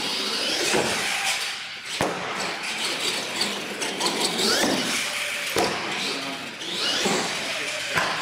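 A radio-controlled monster truck driving on a concrete floor: its motor whines up and down with the throttle over the sound of the tyres, with three sharp knocks.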